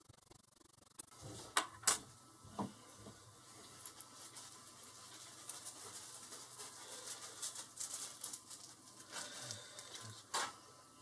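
Small metal padlock parts, the Squire SS50C's core and brass pieces, handled and worked by hand: a few sharp clicks and taps in the first few seconds and another near the end, with light rubbing and scraping between.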